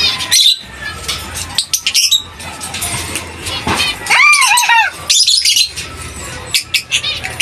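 African lovebirds squawking and chirping, a string of short, harsh, shrill calls, with one longer arching call about four seconds in.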